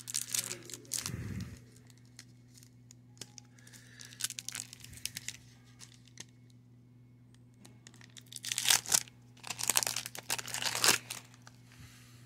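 Foil wrapper of a Pinnacle baseball card pack being torn open and crinkled by hand. The rustle comes briefly at the start, then again more loudly in two spells about eight to eleven seconds in, over a steady low hum.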